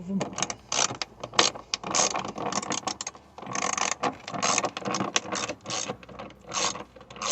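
Ratchet wrench clicking in quick, irregular runs as a fender bolt is turned out.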